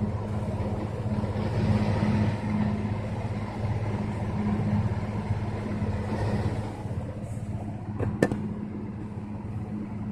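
Attic fan with a newly replaced motor running steadily: a low, even hum over a rush of air. A single sharp click sounds about eight seconds in.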